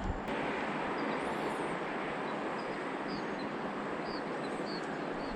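Steady rush of the Kern River's flowing water, with a few faint bird chirps over it.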